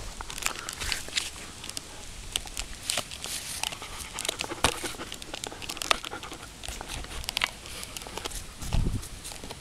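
German Shepherd gnawing a chew bone: irregular crunching and sharp cracking clicks of teeth on the bone. A dull low thump near the end.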